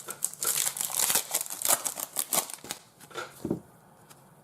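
Foil wrapper of a trading card pack crinkling as it is torn open, a dense crackle that lasts a couple of seconds and dies away before the end.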